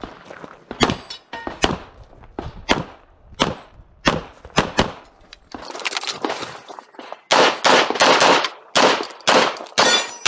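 Semi-automatic pistol shots: single shots at irregular spacing through the first half, then a rapid string of louder shots from about seven seconds in.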